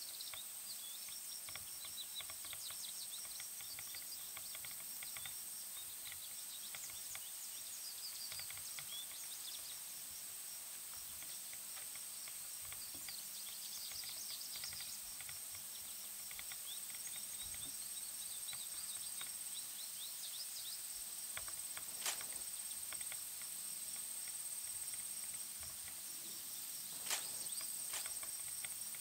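Quiet woodland ambience in late autumn: a faint steady hiss with many short, high chirps through the first half, and two sharp clicks, about two-thirds of the way through and again near the end.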